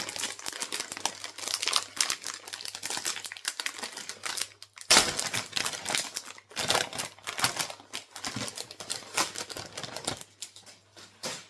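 Crinkling of a foil trading-card pack wrapper and the clicking of cards being handled, with a loud crackly burst about five seconds in.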